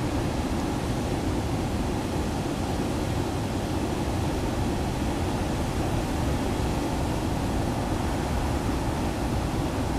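Steady low rumbling roar of strong typhoon wind and rough surf, with wind buffeting the microphone.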